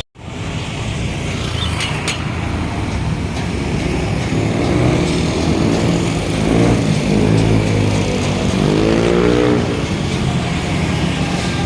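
Busy road traffic with vehicle engines running, and one engine rising and falling in pitch about seven to nine seconds in as a vehicle speeds up close by. The sound drops out briefly at the very start.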